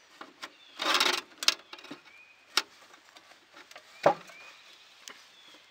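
Engine cover of a Kohler Magnum 17 mower engine being worked loose and lifted off by hand. A short scraping rustle comes about a second in, then a few light clicks, and a sharp knock about four seconds in.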